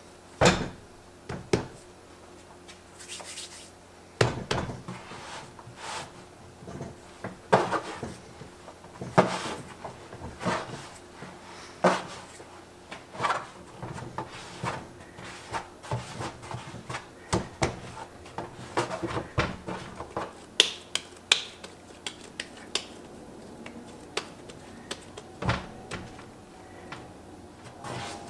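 Hands kneading and shaping a ball of pizza dough on a work surface: irregular soft thumps and slaps of the dough pressed and dropped against the surface, about one or two a second.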